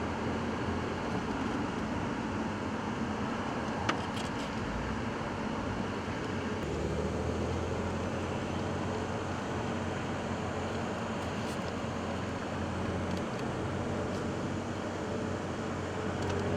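Steady car road and engine noise heard from inside the cabin, with one sharp click about four seconds in.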